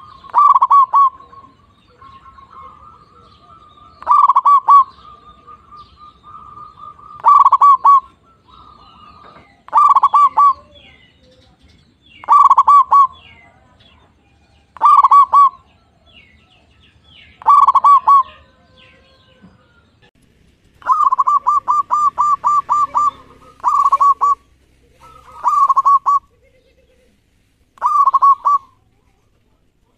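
Zebra dove (perkutut) singing: short, loud phrases of quick cooing notes, repeated about every two and a half seconds. A little past the middle one phrase runs longer, as a string of about eight rapid notes.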